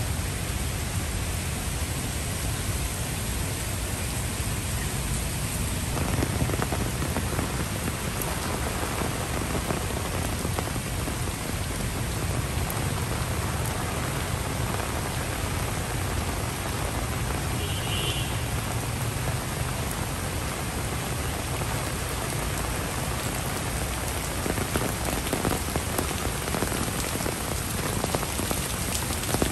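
Steady rain falling on paved walkways and leaves, a constant even hiss that fills out about six seconds in, with a few separate drop taps near the end.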